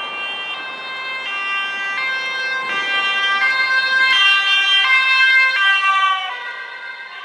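Two-tone siren of a fire brigade commander's car driving past, alternating between a high and a low note about every 0.7 s. It grows louder as the car approaches, then fades near the end as it moves away.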